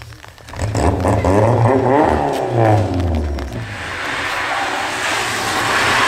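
Peugeot 205 rally car engine revving hard, its pitch climbing and dropping as it changes gear. From about halfway a steady hiss of tyres on wet tarmac takes over.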